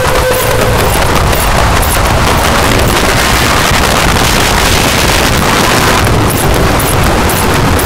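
Harsh electronic noise music: a loud, unbroken wall of distorted noise with a rumbling low end and a rapid flutter in the highs.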